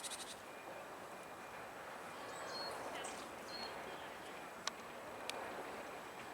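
Japanese bush warbler giving its winter call notes: a brief rattle of quick dry ticks, a few short thin high notes, then two sharp single ticks near the end, faint over a steady background hiss.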